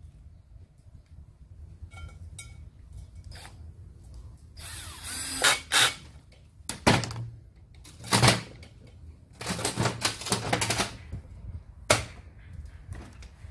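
Cordless drill-driver running in a series of short bursts as it drives short 5 mm hex bolts into a submersible pump's cover. A few light clicks of parts being handled come before the first burst.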